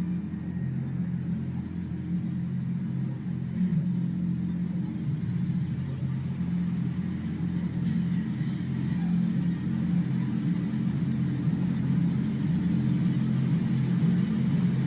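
A low, steady rumbling drone with a few held pitches in it, the tense soundtrack of a horror film, swelling slightly toward the end.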